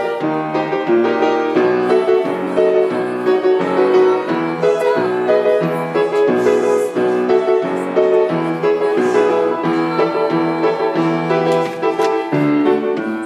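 Piano played with both hands: a steady, rhythmic accompaniment of repeated chords over a moving bass line.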